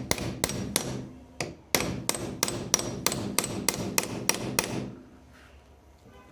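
Quick, steady hammer taps, about three to four a second, stopping about five seconds in.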